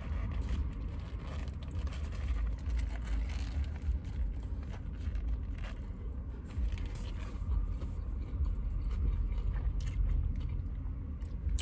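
Steady low rumble of a car moving, heard from inside the cabin, with a few faint clicks and rustles.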